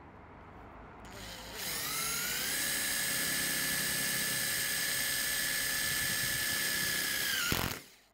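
A drill driving a self-drilling screw through a metal restrictor bracket into an aluminium window sash. The motor spins up with a rising whine about a second and a half in, runs at a steady high whine, then stops abruptly shortly before the end.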